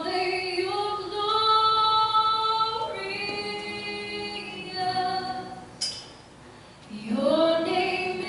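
Worship singers, led by women's voices, singing a slow song in long held notes. A short click comes a little before six seconds, followed by a brief pause, and a new phrase swells in about a second later.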